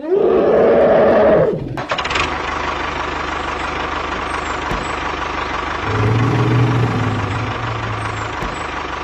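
An engine starts with a rising rev lasting about a second and a half, then settles into a steady, rattling run with a low hum. About six seconds in it swells briefly with a deeper drone.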